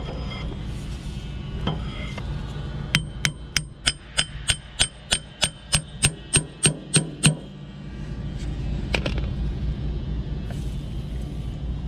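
A hammer striking metal in a quick, even run of blows, about four a second for some four seconds, each blow ringing. There are a few single knocks before and after the run, and a steady low hum underneath.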